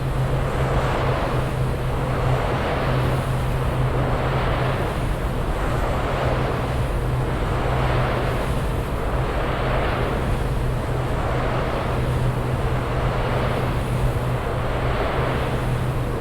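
Wind turbine running: a steady low hum under a whoosh from the blades that swells and fades evenly about once every two seconds.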